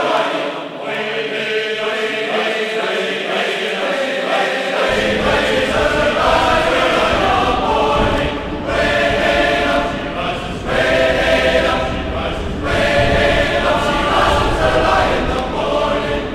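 Several voices singing or chanting together in phrases a second or two long, with short breaks between them.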